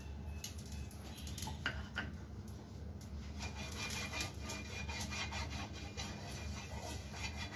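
Silicone brush rubbing oil across a hot non-stick pan to grease it: quick scratchy strokes that get busier about halfway through, over a steady low hum.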